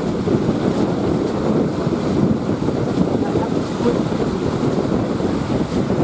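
Steady wind noise on the microphone over the rush of breaking surf.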